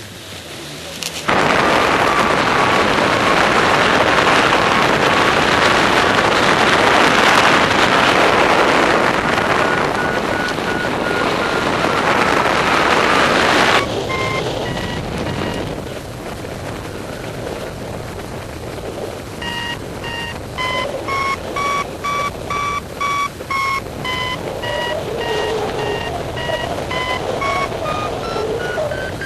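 Loud rushing of wind over the microphone in flight that cuts off suddenly about halfway through. After that comes a paraglider's variometer beeping in quick repeated pips, the pitch stepping higher near the end, which signals the glider climbing in lift.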